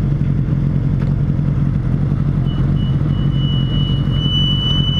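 Motorcycle running at steady road speed: a low engine hum under wind and road noise on the rider's microphone. A thin, steady high whistle comes in about halfway through.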